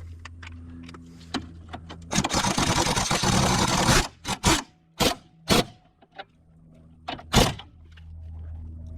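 Hand tools working a car strut's top-mount nuts: about two seconds of dense rapid rattling partway in, then several sharp separate metal clinks.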